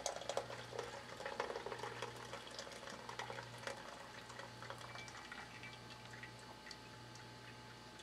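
Brewed coffee poured from a French press into a glass measuring cup: a faint trickle and splash of liquid that thins out to scattered drips toward the end.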